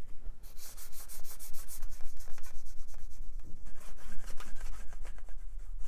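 A cloth scrubbing hard against the plastic front of an old Sony CD-ROM drive, rapid back-and-forth strokes wiping off the stained, peeling label residue.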